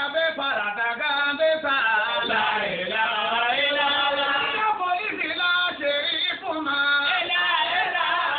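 A man chanting in long, held notes that waver in pitch, phrase after phrase with short breaks between them.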